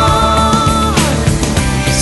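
Rock song playing: a long held note that slides down about a second in, over full band accompaniment.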